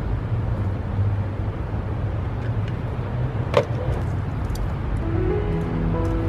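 A steady low rumble, such as a running vehicle engine or traffic, with one sharp click about three and a half seconds in. Music with plucked, stepping notes comes in near the end.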